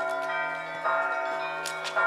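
A large bell tolling steadily, struck a little more often than once a second, each stroke ringing on with many overlapping tones that fade slowly.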